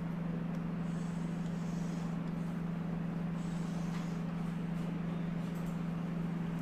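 A steady low hum under a faint hiss, unchanging throughout.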